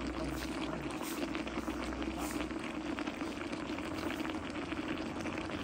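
Pork and cabbage sizzling and bubbling in a metal wok over the heat: a steady, crackling hiss.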